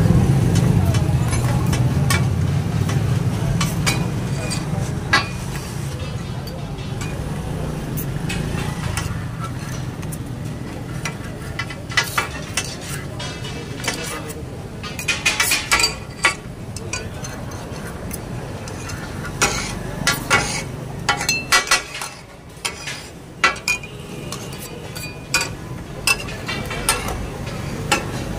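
Metal spatulas and a cleaver clacking and scraping on a large flat griddle (tawa) as meat, onions and tomatoes are chopped and stirred, over a steady sizzle. The clacks come in runs of quick strikes, most of them in the middle stretch.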